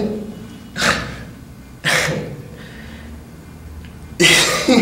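A man's stifled, breathy laughter: three or four short bursts of breath about a second apart, the one near the end the loudest and partly voiced.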